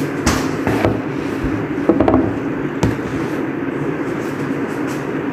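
Kitchen clatter: a few knocks and clinks a moment in, about a second in, and in a short cluster around two to three seconds in, over a steady low drone.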